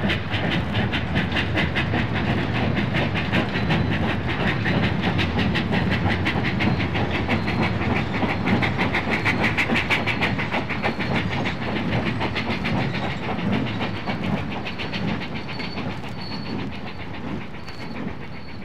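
Train running with a fast, even beat of clicks that grows quieter over the last few seconds.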